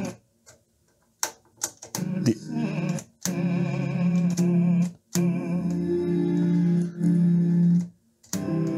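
Classical music from a radio station playing through a 1992 Pioneer A-119 amplifier, cutting out for about a second near the start and then several more times briefly, with crackles at each break as a front-panel control is turned. The crackles and dropouts are the scratchy, dirty control contacts that this service is meant to clean.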